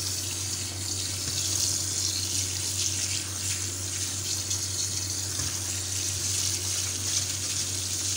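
Cold tap water running steadily into a metal colander of boiled penne in a stainless-steel sink, splashing as a hand stirs the pasta to rinse it after straining. A steady low hum sits underneath.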